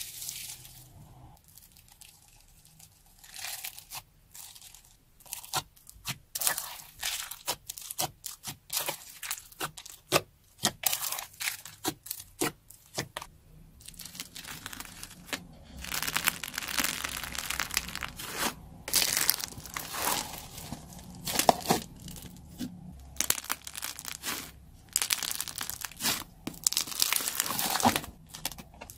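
Hands squeezing, pressing and pulling slime loaded with foam beads: crisp crackling and clicking as the beads shift, with the sticky tearing of thick slime being pulled apart. Separate clicks at first, then a denser, steadier crackle from about halfway through.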